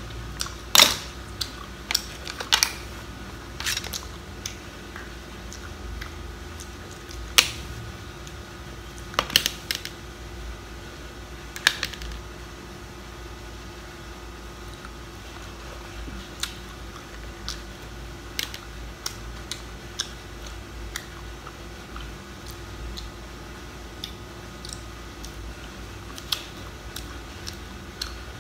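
Mud-crab claws being eaten: sharp clicks and cracks of shell and bites, busiest in the first twelve seconds, then sparser and softer, over a faint steady hum.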